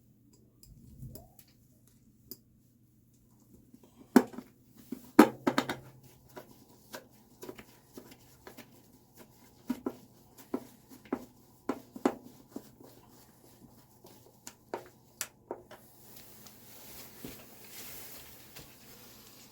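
Hand-work noises on an electric water heater: a run of irregular clicks and knocks, the sharpest about four and five seconds in and thinning out after, then a soft rustling near the end.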